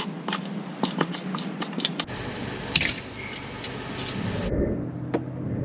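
Hand tools clicking and clinking against metal in a quick run of sharp clicks over a steady hum, then a few scattered taps later on.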